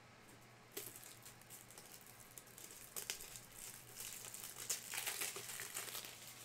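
Plastic wrapping being torn and crinkled by hand, a card box or pack being unwrapped. The crackling starts about a second in, grows denser and louder in the second half, and thins out near the end.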